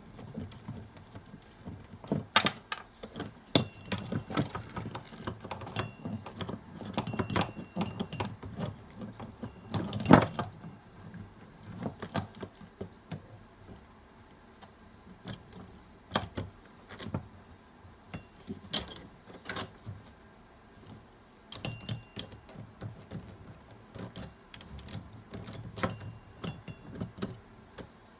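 Irregular metallic clinks and knocks of hand tools and a gear puller being worked on the end of a Ford Type 9 gearbox on a workbench, with one louder knock about ten seconds in.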